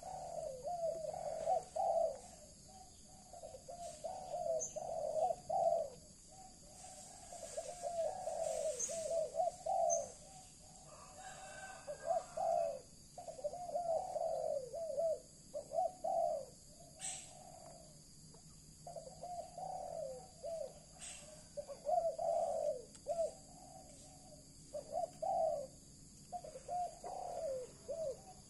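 Pigeons cooing over and over, in short bursts of low, wavering notes with brief pauses between them. Faint high chirps sound above, and two sharp clicks come about two-thirds of the way through.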